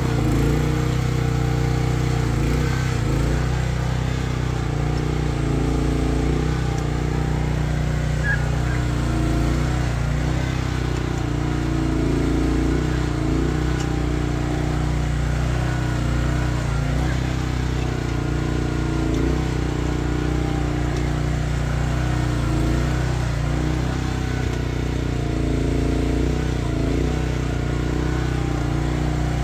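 Chery one-ton mini excavator's Briggs & Stratton 13.5 hp engine running steadily while it digs, its note wavering up and down every second or two as the boom, arm and bucket are worked.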